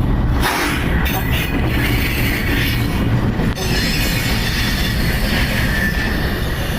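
A train passing close by on the rails: a loud, steady rumble of the wheels and cars, with a thin high wheel squeal joining about a second in.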